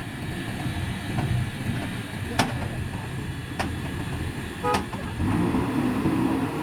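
Heavy machinery's diesel engine running at a steady low rumble, with three sharp metallic knocks about a second apart in the middle. The last knock comes with a brief horn-like toot.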